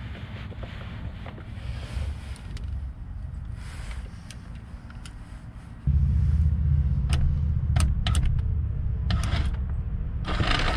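RV entry-step electric motor, powered through clip leads from a battery jump pack, starts running about six seconds in with a steady low drone as it drives the step linkage. Sharp clicks and a short scrape come over it near the end.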